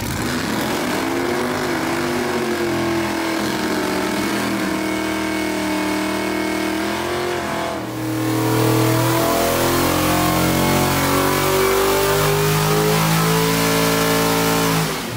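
Mopar 360 small-block V8 of a 1968 Dodge Dart drag car revving, its pitch rising and falling. About eight seconds in it turns louder with a hiss over the engine, as in a tyre-smoking burnout.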